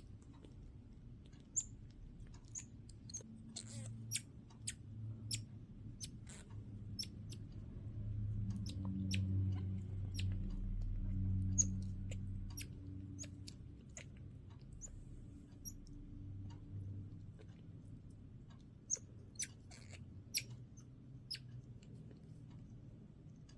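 Midas tamarin giving short, high-pitched chirps, scattered irregularly with pauses, sometimes several close together. A low rumble swells up and fades in the middle.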